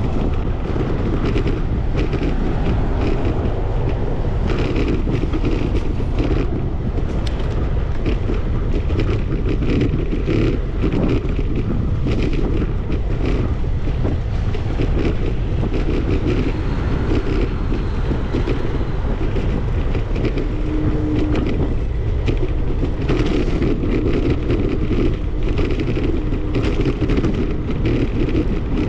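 Wind blowing across the microphone of a camera riding on a moving bicycle: a steady low rumble broken by many short gusts.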